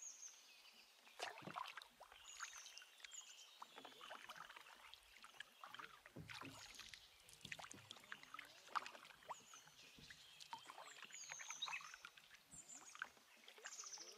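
Faint canoe paddling: irregular paddle dips and water splashing and dripping. Repeated high bird chirps, each falling in pitch, sound throughout.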